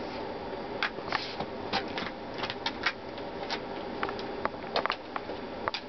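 Dog's claws clicking and tapping irregularly on a hardwood floor as it steps about and paws, a quick series of sharp clicks.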